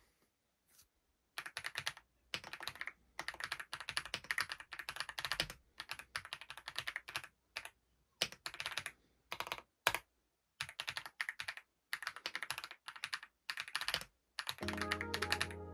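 Typing on a Wisely 99-key mechanical keyboard: runs of rapid key clicks a second or so long, with short pauses between.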